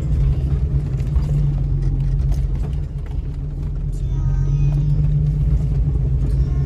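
2000 Jeep Cherokee engine running steadily at low speed as it crawls over a 4x4 trail, a constant low hum with a brief dip in loudness about three seconds in.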